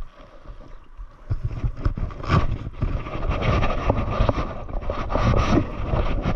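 Water sloshing and splashing around an angler's legs as he wades across shallow tidal flats, with wind buffeting the microphone. The noise is irregular, with many small knocks, and grows louder about a second in.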